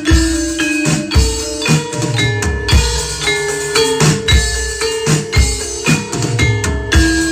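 Javanese gamelan-style ensemble music: drums beating in a steady rhythm under ringing metallophone notes, played loud through a sound system.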